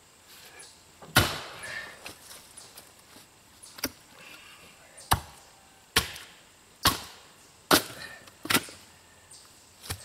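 Axe blows striking log rounds of knotty, stringy wood being split by hand: a heavy strike about a second in, then a run of sharp chops about one a second through the second half, eight in all. The repeated blows are needed because the wood is stringy and full of knots and doesn't split cleanly.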